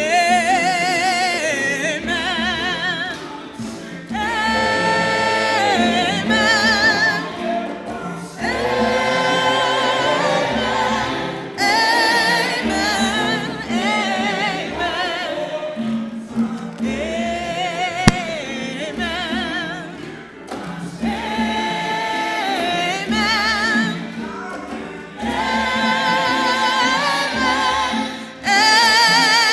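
A choir sings a gospel-style sung response, with strong vibrato, in phrases of a few seconds separated by short breaks.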